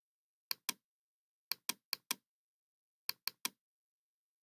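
Computer mouse button clicking in quick groups: two clicks, then four, then three, each short and sharp, with dead silence between.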